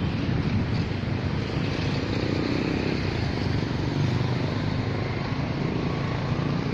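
Road traffic: a motor vehicle's engine running past over a steady rumble, the engine most noticeable a couple of seconds in.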